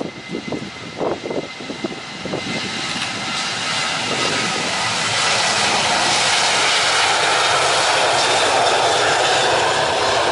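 Boeing 737-900ER's CFM56-7B jet engines at high power as the airliner rolls along the runway. The jet noise swells over the first few seconds, then holds loud and steady.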